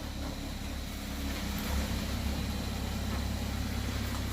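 GMC Terrain driving on a brake test drive: a steady low engine and road rumble with no brake squeal, the new pads and rotors running quiet.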